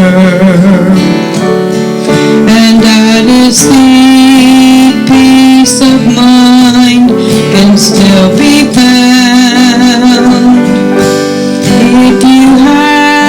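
Worship music: a slow, sustained instrumental passage led by guitar.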